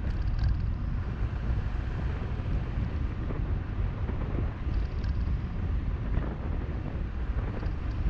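Wind buffeting the microphone of a camera on a moving car, over a low, uneven rumble of the car on the road.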